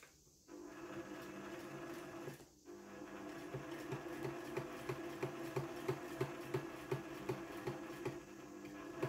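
Household sewing machine stitching slowly through a denim jeans waistband, a regular knock of about three stitches a second over the motor's hum. It starts about half a second in and stops briefly at about two and a half seconds.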